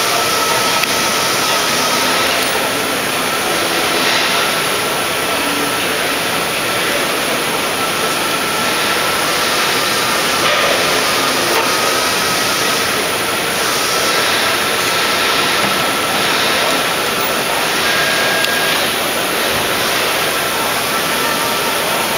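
Steady loud machine noise with a thin steady whine running through it, the din of running machinery on a shop floor.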